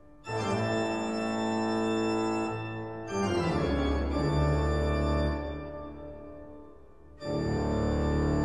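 Pipe organ being played: held full chords, changing to a new chord about three seconds in with deep bass notes entering. The sound fades away over a couple of seconds, then a loud new chord comes in near the end.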